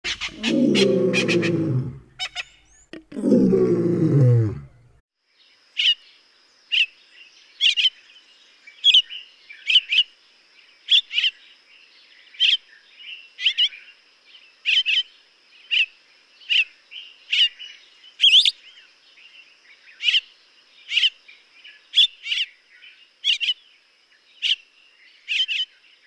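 Two loud, deep sounds falling in pitch in the first four seconds, then a violet-backed starling calling: short sharp notes repeated about once a second, over a faint steady high whine.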